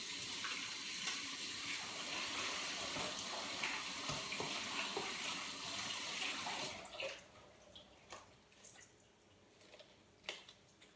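A tap running into a sink as hands are washed under it, with uneven splashing, then turned off about seven seconds in; a few light knocks follow.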